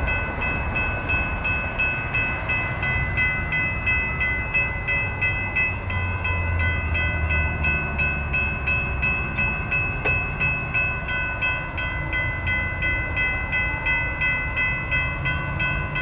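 Railroad crossing warning bells ringing steadily in even, rapid strikes, about three a second, over a low rumble.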